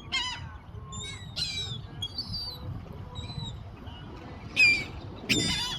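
Seagulls squawking: a string of short, harsh calls, the loudest about four and a half seconds in.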